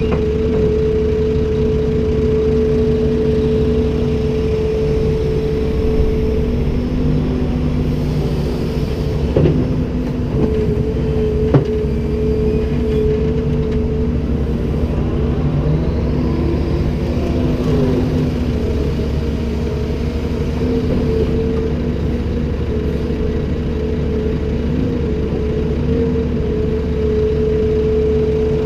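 Komatsu PC290-10 excavator's diesel engine running steadily with a constant hum, with two short sharp knocks around ten and twelve seconds in.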